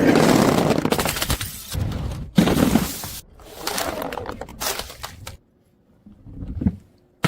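A run of crashing, breaking noises, things being smashed or crushed, in several loud bursts with sudden starts. It goes near silent for a moment near the end, then a sharp snap.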